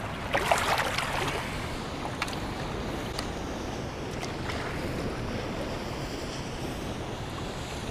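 Steady rush of water pouring through the dam spillway, with brief splashing in the shallows about half a second in.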